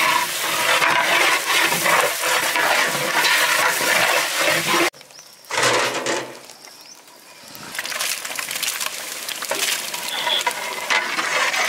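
Onions sizzling and crackling in hot oil in a large biryani cooking pot. About five seconds in the sound drops away abruptly, a short loud burst follows as sliced tomatoes go into the hot pot, and the sizzling builds again.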